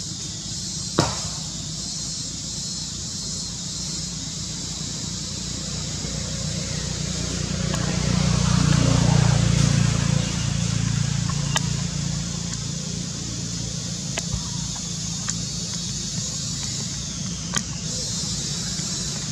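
Low engine hum, like a distant vehicle, that swells about halfway through and then fades back, under a steady high hiss. A few sharp clicks stand out.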